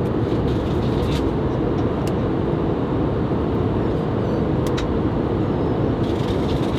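Steady airliner cabin noise in flight: a dense, even low rush from the engines and airflow, with a few faint clicks.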